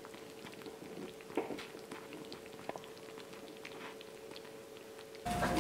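Quiet room tone: a steady faint hum with scattered small ticks and clicks. Near the end a louder noise with a different hum starts abruptly.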